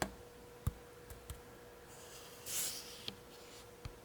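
Light fingertip taps on a Sony a6400 camera body, picked up by the camera's built-in microphone: a few soft, irregularly spaced clicks, with a brief scuff of handling about two and a half seconds in. A faint steady hum runs underneath.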